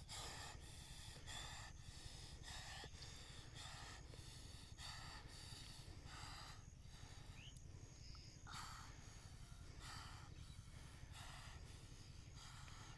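Near silence with faint, soft rustles and squelches repeating about every half second, as hands grope through wet mud and weeds.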